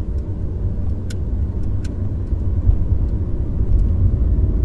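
Steady low rumble of a Volkswagen car's engine and tyres on the road, heard from inside the cabin while it drives.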